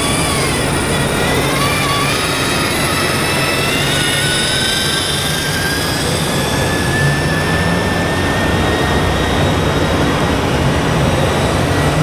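Electric drive of a radio-controlled Mercedes-Benz SK tipper truck model whining as it drives, the whine slowly rising in pitch, over a steady low hum.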